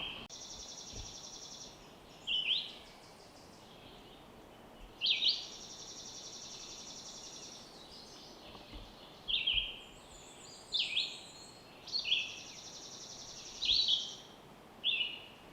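Songbirds singing repeatedly over a faint steady background hiss: each short phrase is a sharp note followed by a high buzzy trill, coming every second or two.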